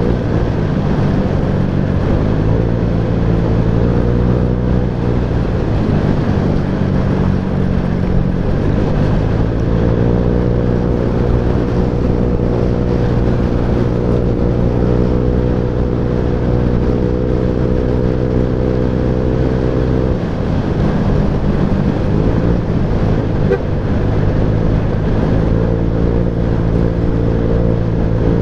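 Jet 4 scooter's engine running under way, with wind and road noise on the microphone. The engine note holds steady for long stretches, drops about two-thirds of the way through as the throttle eases, then rises again near the end.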